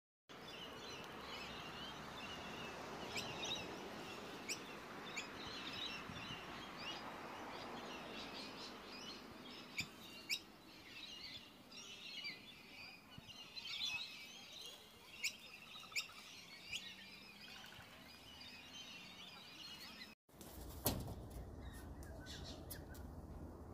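Many small birds chirping and twittering, with quick sharp calls, at a low level. About twenty seconds in the chirping breaks off and gives way to a low hum, with one louder sharp call or click soon after.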